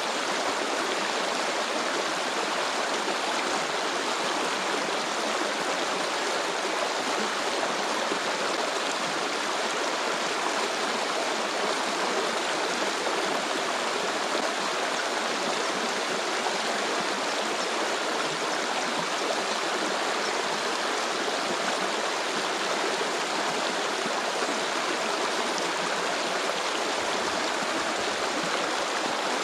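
Stream flowing steadily, an even, unbroken rush of water.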